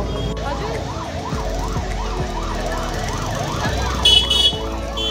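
A siren wailing up and down quickly, about two and a half sweeps a second. About four seconds in, a short, loud, shrill high tone sounds twice.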